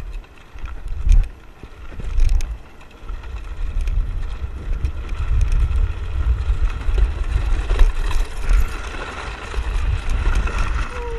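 Land yacht running fast over a sand beach: gusty wind buffeting the camera's microphone over the low rumble of the wheels, with scattered sharp knocks and rattles from the cart's frame and rigging.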